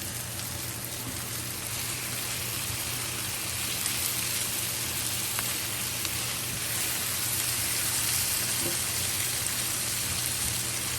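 Pineapple chunks and vegetables sizzling in a skillet: a steady frying hiss with a few small pops.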